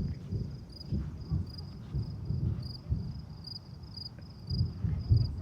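A run of low, dull thumps in the sky, roughly two a second and uneven, heard as a knocking, over crickets chirping in a steady rhythm. The thumps are taken for thunder, though they sound unlike normal thunder.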